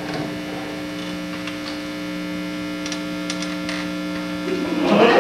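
Steady electrical mains buzz, a low hum made of several fixed tones, cutting off about four and a half seconds in.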